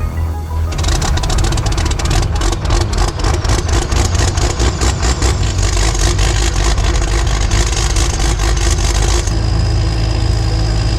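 A farm machine's engine running with a dense, rapid clatter. Near the end the sound changes abruptly to a steadier low hum with a high steady whine.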